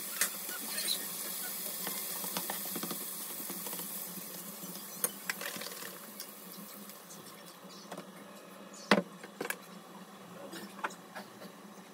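Bacon sizzling in melted butter in a nonstick frying pan, with scattered pops. The sizzle dies away after about six seconds as pancake batter covers the bacon, and a sharp knock comes about nine seconds in.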